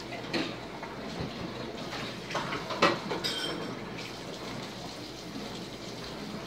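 Small plastic Lego pieces being handled and fitted together: a few light clicks and taps, the sharpest about three seconds in, over a steady background hiss.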